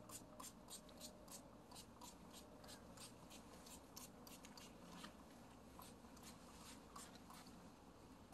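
Faint, quick spritzes of a pump spray bottle of tick and mosquito repellent aimed at a puppy's legs and coat, short hissy puffs coming about three a second.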